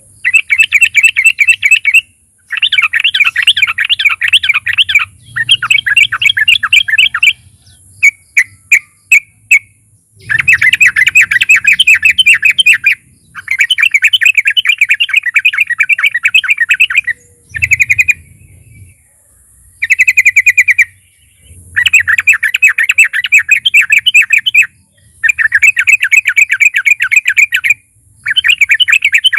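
Yellow-vented bulbul (trucukan) singing loud, rapid bubbly rolling phrases. The phrases come one after another, each one to three seconds long with short pauses between, and a few single short notes stand alone about eight seconds in.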